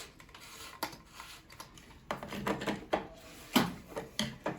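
Plastic parts of a water-filter control valve being screwed onto the filter column: a couple of sharp clicks, then a run of scraping and rubbing as the threads fail to catch.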